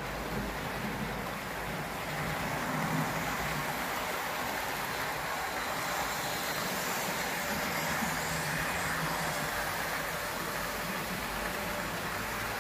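H0 model trains running on the layout: the steady rolling and motor noise of the locomotives and wagons on the track.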